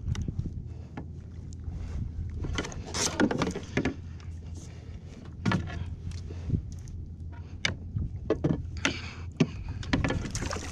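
Irregular knocks, clatters and rattles of fishing rods and gear handled on a plastic sit-on-top kayak, over a steady low rush of wind and water.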